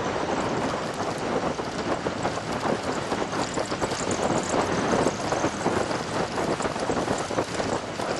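Road noise from a vehicle driving over a rough dirt track: a dense, steady crackle and clatter of rattling and gravel.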